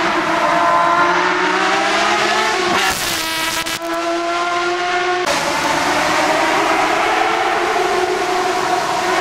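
A racing car's engine revving hard under acceleration, the note climbing. About three seconds in, the sound cuts abruptly to a close, high-revving pass for a couple of seconds. It then cuts back to a more distant engine note rising again.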